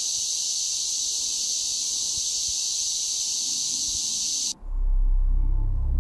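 A steady, shrill, high-pitched shriek sound effect for the flower creature's scream. It cuts off suddenly about four and a half seconds in, and deep, low music starts right after.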